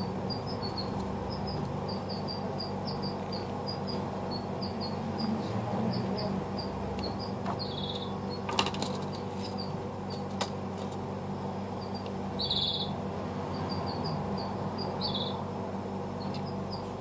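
Steady low electrical hum, with short high chirps like a small bird's repeating throughout, and two sharp clicks around the middle as tweezers handle the phone parts.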